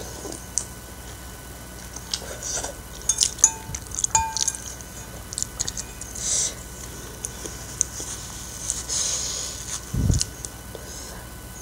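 Close-up eating sounds of instant noodles in soup: slurping noodles and wet chewing and smacking, with a couple of light clinks of a metal spoon on a ceramic bowl and a low thump near the end.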